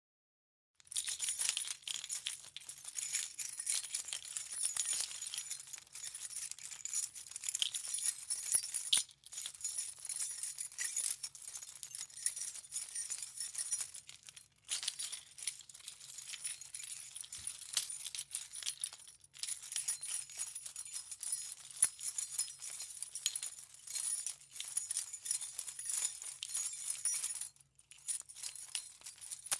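A key chain with many keys jingling as it is shaken, a dense run of metallic clinks with a few short pauses.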